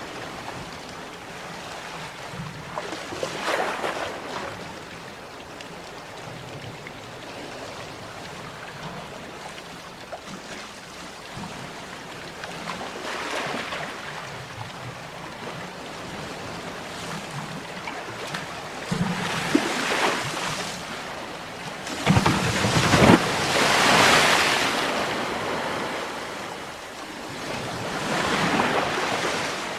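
Ocean waves breaking and washing on the shore, surging every several seconds over a steady background wash. The largest wave breaks about two-thirds of the way in.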